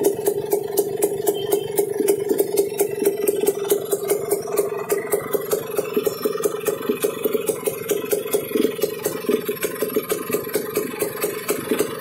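HD3 motorcycle's air-cooled single-cylinder engine idling with a fast, even beat. The engine has been rebored to standard bore and is running in.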